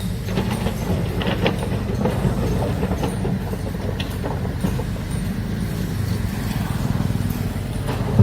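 A large excavator's diesel engine running steadily, with a deep rumble, scattered metallic knocks and clanks, and a sharp, loud knock near the end.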